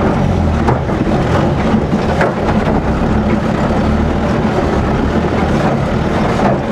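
Off-road jeep's engine running steadily under load, heard from inside the cabin, with scattered knocks and rattles from the body as it bounces over a rough dirt track.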